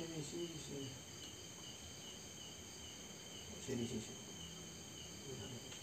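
Night insects, crickets among them, chirping steadily in a high pulsing trill. A low voice murmurs briefly at the start and again about four seconds in.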